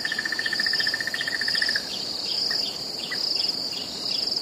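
Crickets chirping: a steady, pulsing high trill with a lower trill that stops about two seconds in, after which short chirps repeat roughly twice a second.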